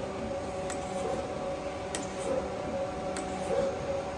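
Freeport SGS-1632AHD surface grinder running with its hydraulic table traversing at maximum table speed: a steady hum with faint clicks about every second and a quarter.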